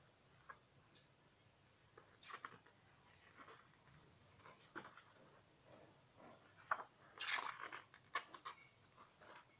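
Thick glossy pages of a large hardcover artbook being turned by hand: faint, scattered paper rustles and soft clicks, with the loudest page-turn rustle about seven seconds in.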